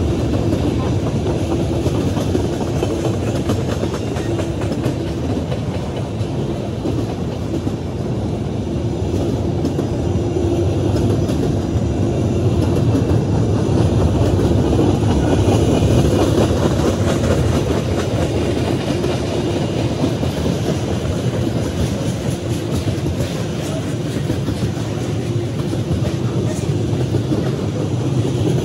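Freight cars (covered hoppers, then tank cars) rolling past at close range: a steady rumble and rattle of steel wheels on the rails, with faint repeated clicking.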